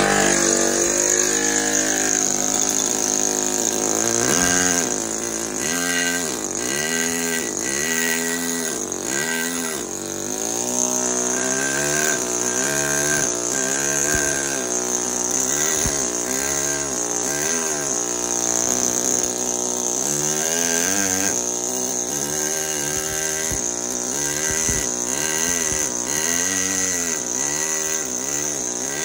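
Pneumatic carving hammer driving a steel chisel into marble: a rapid, steady buzzing chatter that starts suddenly and repeatedly wavers up and down in pitch, with a steady high hiss above it.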